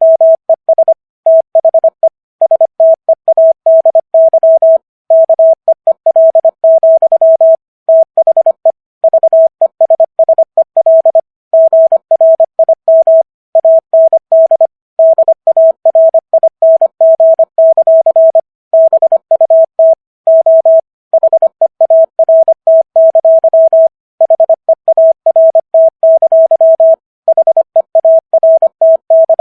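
Computer-rendered Morse code at 25 words per minute: a single steady beep tone keyed on and off in quick dots and dashes, with short gaps between letters and slightly longer gaps between words.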